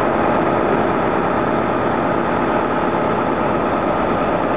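JR 209 series electric commuter train standing at the platform, giving a steady hum with several faint steady tones.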